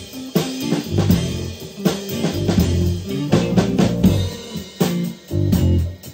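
Rock band playing live and without vocals: a drum kit keeps a steady beat of bass drum and snare under electric guitars and a heavy low bass line.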